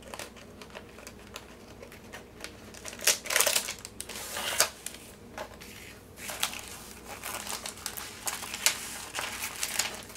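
Clear plastic tube and rolled diamond-painting canvas crinkling and rustling in irregular bursts as the canvas is slid out by hand and unrolled.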